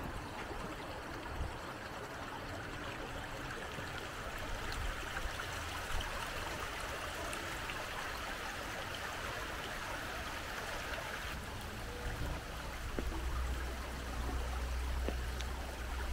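Small stream of water running and trickling over rocks in a stone channel, a steady rushing sound that grows a little louder in the middle. A low rumble joins it in the last few seconds.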